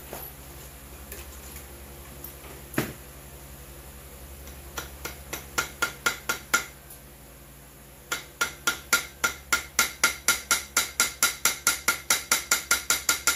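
A small hammer tapping on metal parts of a McCulloch 10-10 chainsaw, each tap with a short metallic ring. There is a single strike, then a loose run of light taps, and from about eight seconds in a steady run of about five taps a second.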